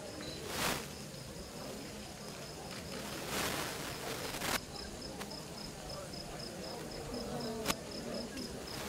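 Crickets chirping in a steady, evenly pulsed high trill over a low murmur of voices. Two brief rushes of noise break in, one just after the start and a longer one about three seconds in, and there is a single sharp click near the end.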